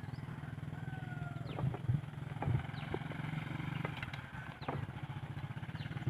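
A small engine running steadily at a low idle, with scattered light clicks and a few short high chirps over it.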